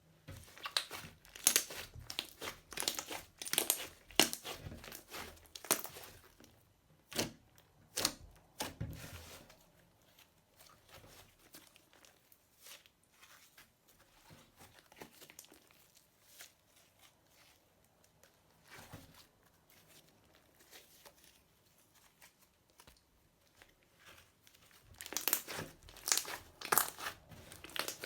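Slime being squeezed and kneaded by hand, crackling and popping in quick clusters. It turns quieter with only scattered small pops in the middle, then gets busy and loud again near the end.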